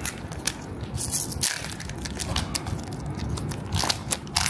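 Foil wrapper of a Pokémon trading card booster pack crinkling and tearing as it is pulled open by hand: a run of crackles, with louder tearing bursts about a second in and near the end.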